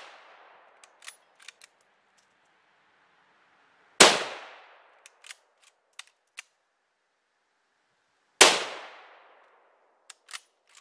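Two shots from a Mosin Nagant 7.62x54R bolt-action carbine, about four and a half seconds apart, each with a long echoing tail. After each shot comes a quick run of metallic clicks as the bent bolt is worked to eject the case and chamber the next round.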